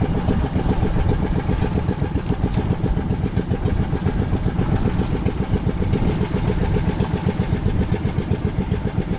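Small fishing-boat engine running steadily with a fast, even pulse.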